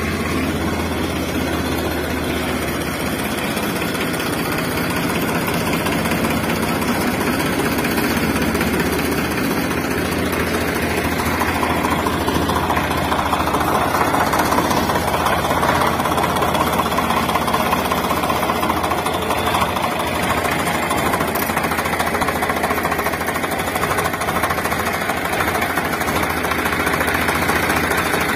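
A motor running steadily with a fast, even rattle and a low hum, a little louder from about halfway through.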